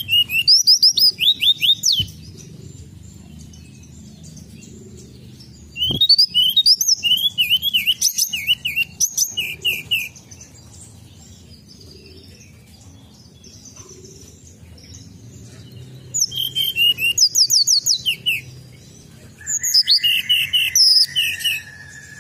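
Tledekan gunung songbird singing four bursts of rapid, high chirping notes, each burst a few seconds long, with pauses between them.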